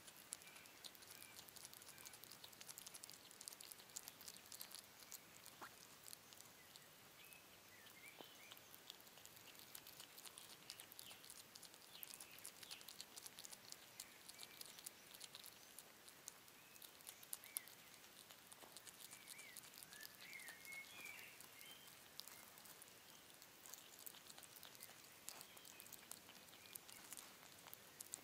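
European hedgehog chewing and smacking on a piece of cheese: quiet, rapid clicking sounds of its mouth working.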